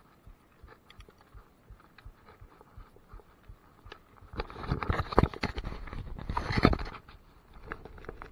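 Bike rolling slowly over gravel with faint crunches and ticks. About halfway in comes a run of loud, close knocks and rubbing as the handlebar action camera is handled and turned round.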